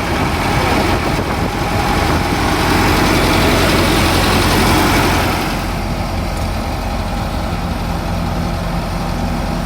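Old combine harvester's engine running steadily, louder at first and dropping to a lower steady level about five and a half seconds in.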